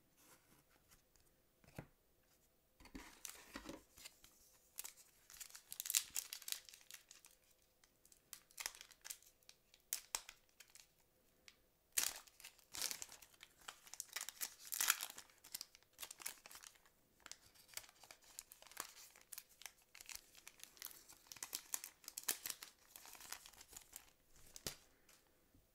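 Foil wrapper of a 2006 Fleer Ultra football card pack being torn open and crinkled by hand, in irregular crackling bursts.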